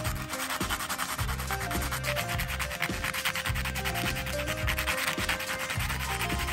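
A thin metal pin rubbed back and forth on sandpaper: a continuous run of quick, scratchy strokes. Background music with a bass line plays underneath.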